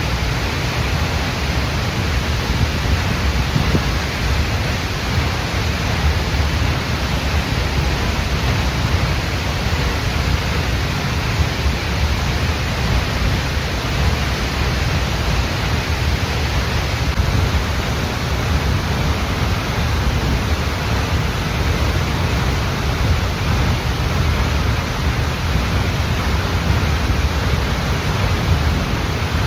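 Waterfall close up: a loud, steady rush of falling water with a deep, constant rumble underneath.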